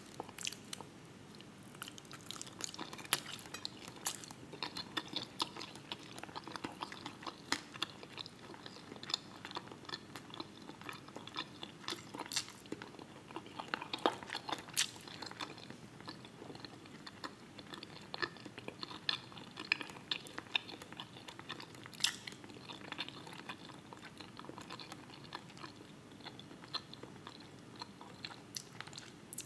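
Close-miked chewing of a meal: a continuous, irregular run of small mouth clicks and smacks, with a few sharper ones standing out.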